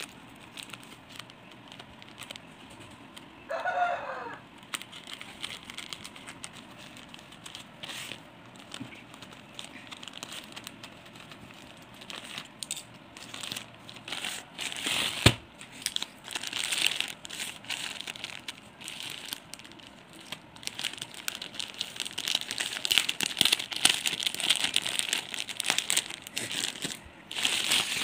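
Plastic courier mailer crinkling and rustling as it is cut open with scissors and the plastic-wrapped T-shirt pack is pulled out, the crinkling busier and louder in the second half. About four seconds in, a chicken calls once, briefly. A single sharp click comes about halfway through.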